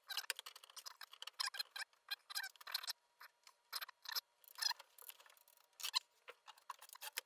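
Hand PEX crimp tool clicking as it closes a crimp ring onto PEX pipe and its fitting: a rapid run of sharp clicks that thins out after about three seconds.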